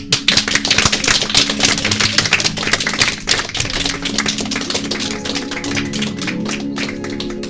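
Audience applauding, slowly dying down, over background music.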